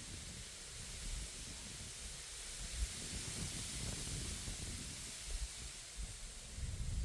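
Wind blowing over reeds: a steady hiss, with uneven low rumbling gusts of wind striking the microphone that grow stronger near the end.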